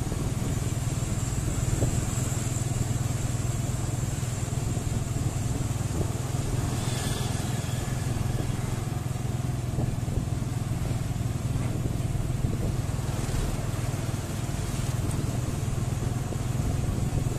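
Steady engine drone of a moving road vehicle, with wind and road noise, holding an even pace throughout.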